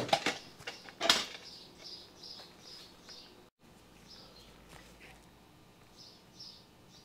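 A small bird chirping faintly in short, high chirps at about two a second. There is a single sharp knock about a second in.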